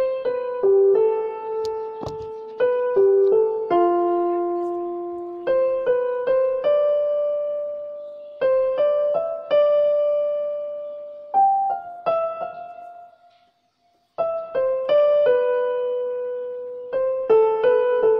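Background piano music: a slow melody of single struck notes that ring and fade, breaking off briefly about thirteen seconds in.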